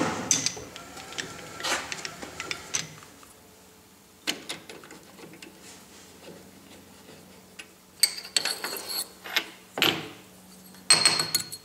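Lathe spindle running down at the start, then scattered metal clicks and clunks as the machinist vise is unscrewed and the freshly notched 1.5-inch welded-seam tube is taken out of it.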